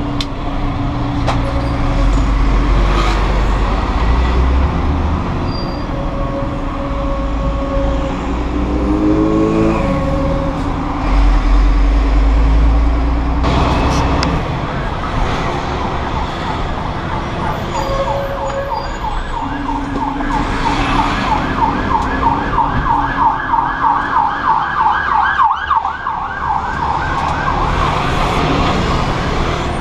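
An emergency vehicle siren in a fast yelp, coming in about halfway through, loudest for several seconds, then fading near the end. Under it, the 32-ton grab lorry's diesel engine drones in the cab, its note rising briefly about nine seconds in as it pulls away.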